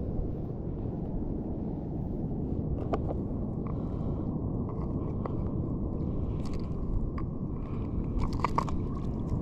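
Steady low rushing of wind and sea on the microphone, with scattered crunching and scraping sounds of handling on the shore, a cluster of them about eight to nine seconds in.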